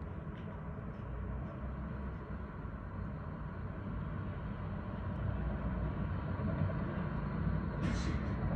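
Steady low rumble of vehicles, slowly growing louder.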